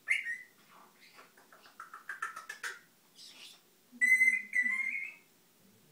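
Brown-headed parrot whistling and chirping: a short call, then a quick run of chirps about two seconds in, then two loud whistled notes near the end, the second rising slightly at its close.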